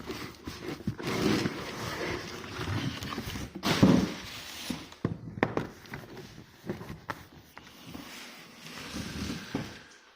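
Cardboard packaging being opened and handled: cardboard scraping and rustling with scattered knocks, the loudest a thump about four seconds in.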